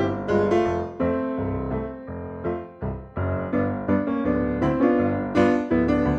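Piano music: a gentle melody over chords, with notes struck every half second or so and each one fading away.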